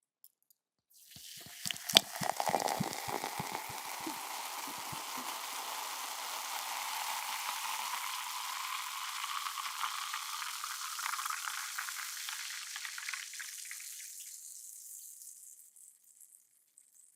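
Sparkling water poured into a glass: a few seconds of splashing with a sharp click, then the carbonation fizzing and crackling steadily before fading out near the end.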